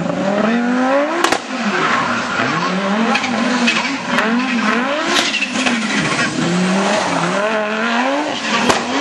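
Audi S1 rally car's turbocharged five-cylinder engine being driven hard through a stage, revving up and dropping back repeatedly as it shifts and lifts for the bends. There are a couple of sharp bangs, one about a second in and one near the end.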